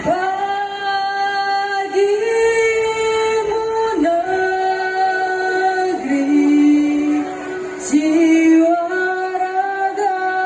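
Women's choir singing long held chords in harmony, the notes shifting to a new chord about every two seconds.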